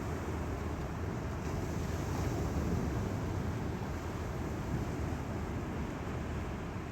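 Steady wind noise buffeting the microphone over the constant rush of ocean surf, both stirred up by an approaching typhoon.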